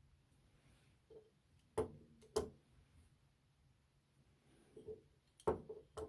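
Light knocks and clatters of a Master Lock No. 77 steel padlock being handled and set down on a wooden workbench: two knocks about two seconds in, then a quick cluster near the end.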